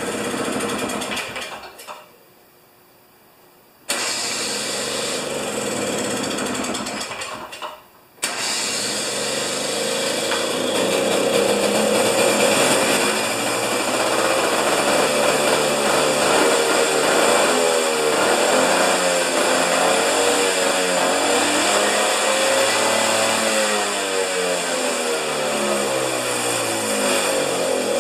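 Husqvarna two-stroke snow thrower engine starting on choke. It cuts out about two seconds in, catches again, dips briefly near eight seconds, then keeps running, its speed rising and falling unevenly. The owner takes the rough running for the engine getting too much fuel, on a machine whose governor is faulty.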